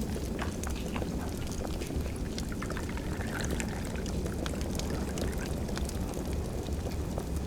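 Crackling fireplace fire: a steady low rumble with many small sharp pops and snaps scattered throughout.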